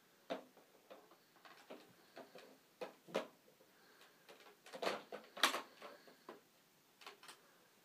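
Plastic Dickie Toys air pump action tow truck being handled: faint, irregular plastic clicks and knocks as its crane hoists a toy car and sets it back on the flatbed. The loudest knocks come about five seconds in.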